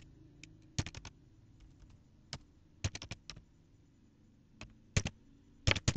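Computer keyboard typing: sharp key clicks in short, irregular bursts of a few keystrokes, with pauses between them.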